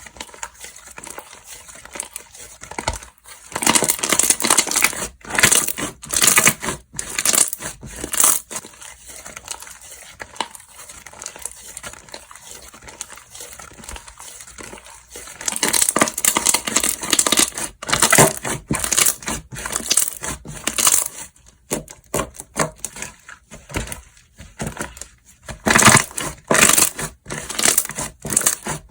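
Slime being squished and worked by hand, giving dense crackling and clicking sounds that come in three louder bouts, with softer crackle between them.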